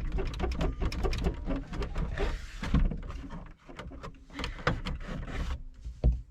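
Rapid clatter of clicks, knocks and rattles over a low rumble, with a sharp knock near the end: hands prying at and handling the plastic interior trim panel of a Jeep Grand Cherokee's rear hatch.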